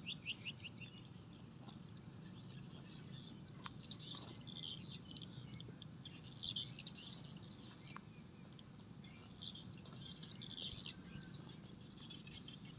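Small birds chirping and twittering, many short overlapping calls and quick trills, over a low, steady background noise.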